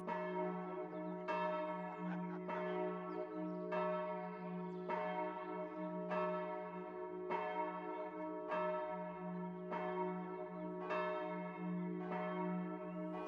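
Church bells ringing a long wedding peal: evenly spaced strokes about once every 1.2 seconds, each ringing on, over a low humming note that hangs between the strokes.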